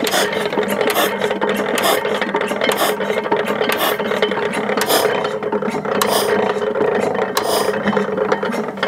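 Ruston & Hornsby stationary engine being turned over by hand on its starting handle without firing. It gives a steady mechanical rasping with irregular clicks from its gears and valve gear.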